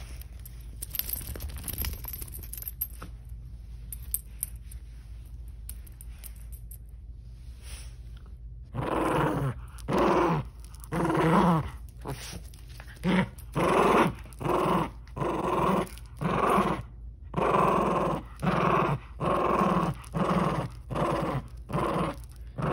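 Small dog growling in play while tugging a toy held by a hand: a run of short growls, about one a second, starting about nine seconds in. Before that, only quieter handling sounds.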